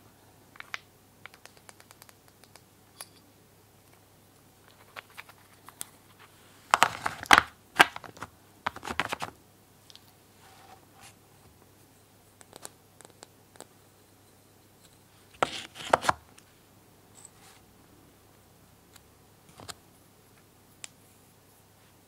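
Small painted wooden toy pieces being handled: light clicks and taps as blocks knock together and against a wooden board, with a few louder, brief scraping rasps as pieces are slid and pushed into place.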